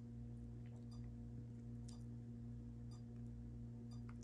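Steady low electrical hum from the ballast of a 150 W high-pressure sodium wallpack, its lamp running at about full brightness after warm-up. A faint tick sounds about once a second.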